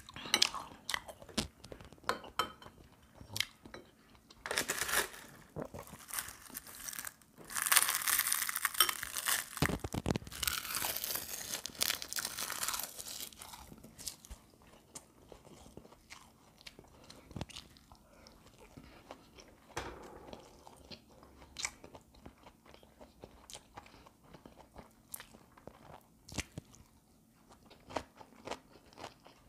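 Close-up eating sounds: a person chewing and crunching food, with small clicks and smacks. The crunching grows louder and denser for several seconds from about eight seconds in, then settles back to quieter chewing.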